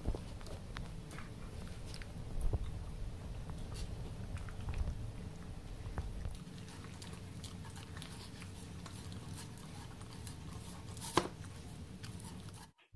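A dog eating soft wet food from a plastic bowl: steady chewing and lapping, with many small clicks of teeth and muzzle on the bowl and one sharper knock near the end.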